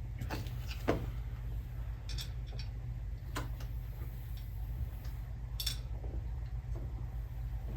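Light metallic clicks and clinks of hand tools and parts while a carburetor is being fitted to an engine, scattered irregularly with the sharpest about a second in, over a steady low hum.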